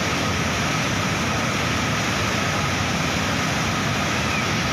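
A flooded river in spate rushing steadily, fast muddy floodwater surging past a bridge.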